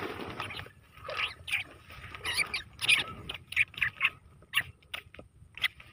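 Field rat caught in a wire cage trap squeaking, a string of short sharp squeaks at irregular intervals.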